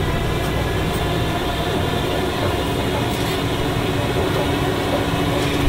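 Safari ride truck running at low speed, a steady low engine rumble with rolling road noise, heard from on board.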